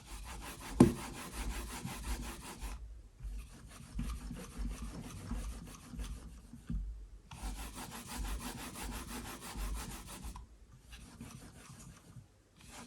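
A wireless gaming mouse swept rapidly back and forth across a smooth cloth deskpad, its feet making a soft scraping rub in four long runs with short pauses between. About a second in there is one dull thud as the mouse is set down on the spongy 4 mm pad.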